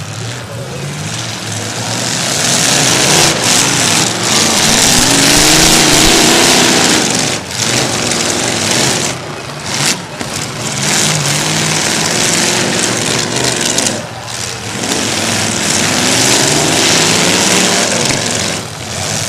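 Demolition derby car engines revving hard in repeated surges, the pitch climbing and falling, with brief drops in level a few times.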